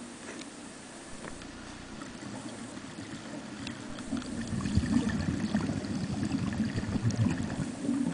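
Scuba diver's exhaled air bubbling out of the regulator underwater, a low gurgling burble that grows much louder from about four seconds in.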